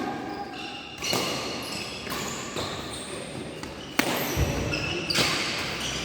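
Badminton rally: rackets striking the shuttlecock, four sharp hits about one to two seconds apart.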